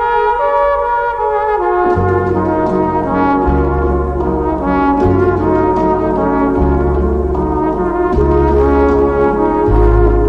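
Instrumental background music: sustained chords, with a bass line coming in about two seconds in.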